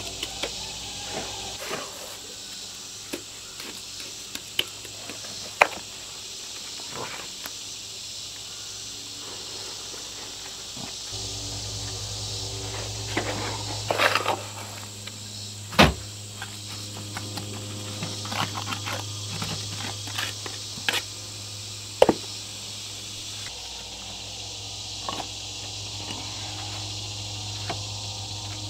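Steady high-pitched insect chorus, with scattered clicks, taps and scrapes of stone and mortar being worked by hand. A low hum joins in for the middle part.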